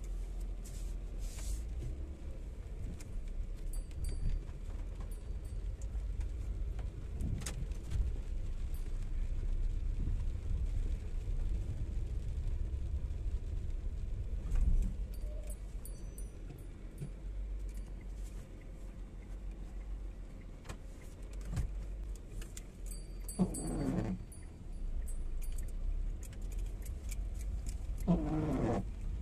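Inside a Tata Zest's cabin while it drives in rain: a steady low rumble of the car running, with scattered light clicks and rattles. Near the end come two brief pitched sounds, rising then falling, about four seconds apart.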